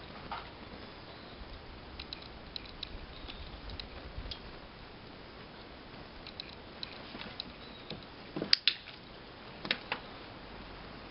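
Scattered light clicks and taps, with a few louder sharp ones about eight and a half seconds in and again near ten seconds.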